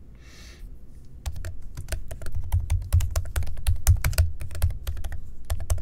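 Typing on a computer keyboard: a quick, uneven run of key clicks starting about a second in.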